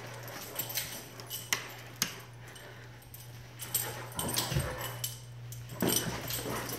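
A Great Dane runs and turns on a tile and carpet floor: scattered sharp clicks and taps of paws and claws, with a dull thud about four and a half seconds in, over a steady low hum.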